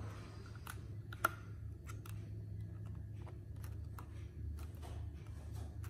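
Faint taps and clicks of fingertips pressing a glass screen protector down onto a phone in a plastic alignment tray, with one sharper click about a second in, over a low steady hum.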